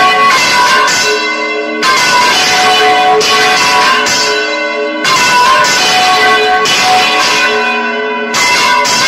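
Church bells swinging full circle in a general peal, heard close up in the belfry. The strokes overlap in a loud, continuous clangour, with a strong stroke about every three seconds as the nearest bell comes round.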